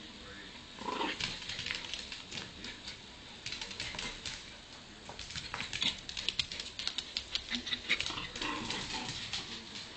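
A dog scuffling and scrabbling: a dense run of quick scratching clicks, with short vocal sounds about a second in and again near the end.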